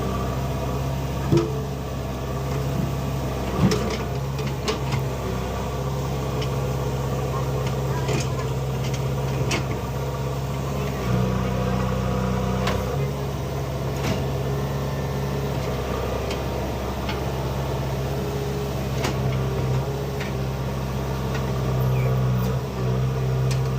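JCB 3DX backhoe loader's diesel engine running steadily, its pitch rising for a couple of seconds about eleven seconds in, with scattered clanks and knocks.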